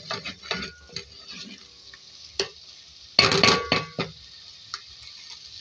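Wooden spoon stirring and scraping thick onion-tomato masala frying in oil in a metal pot, over a steady sizzle, with a louder clatter of the spoon against the pot about three seconds in.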